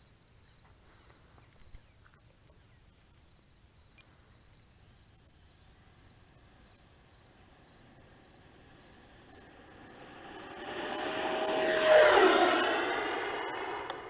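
E-flite Viper 90 mm electric ducted-fan jet passing close by. Its fan whine swells over about two seconds, drops in pitch as it goes past, then fades. A steady high insect trill runs underneath.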